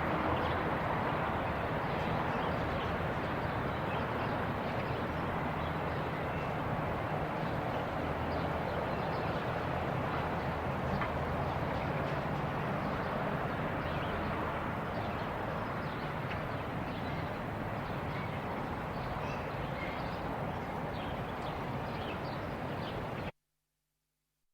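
Village park ambience: a steady wash of distant outdoor background noise with many short faint clicks and chirps scattered through it, cutting off suddenly a second before the end.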